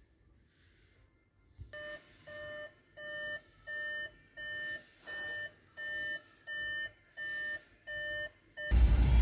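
SEAT Arona's dashboard warning chime, a pitched beep repeating steadily just under twice a second, sounding with the driver's door open and the instrument cluster lit. Loud music cuts in near the end.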